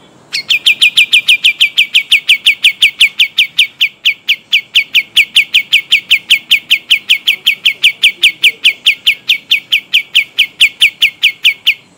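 Kapas tembak songbird singing a long rolling trill: about five sharp notes a second, each dropping quickly in pitch, in one unbroken run that starts about half a second in and stops just before the end.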